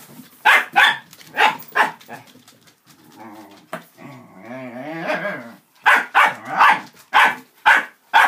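Dachshunds barking in play: four sharp barks in the first two seconds, a drawn-out growl in the middle, then a quick run of about six barks near the end.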